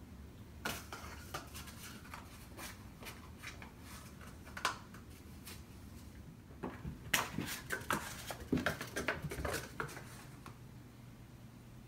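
Cardboard toilet-paper tube batted and knocked about on carpet by a cat, with scuffs of paws: scattered light taps, thickest in a flurry over the second half.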